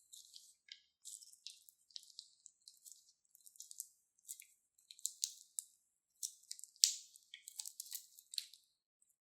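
Crunchy slime squeezed and worked by hand, giving many irregular crisp crackles and squishes, the loudest about seven seconds in.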